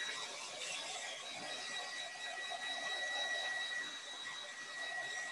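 Hand-held hair dryer running steadily on wet chalk paint: a high, even whine over the rush of air.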